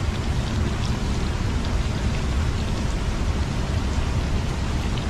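A steady rushing noise, strongest in the low end, with faint light crackles scattered through it from the open wood cooking fire under a wok of simmering greens.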